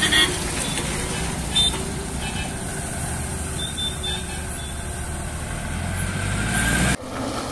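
Loaded lorry's diesel engine running as it pulls away, a steady low rumble that grows stronger and then cuts off abruptly about seven seconds in.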